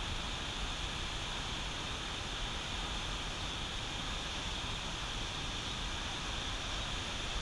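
Turbulent whitewater rushing below a dam, a steady, unbroken noise.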